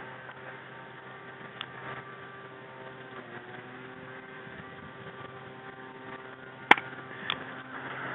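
Steady low hum with a sharp snap about two-thirds of the way through and a fainter snap just after, typical of airsoft gun shots.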